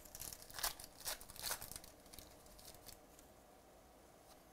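A baseball card pack's wrapper being torn open by hand: a few sharp crinkling rips within the first two seconds.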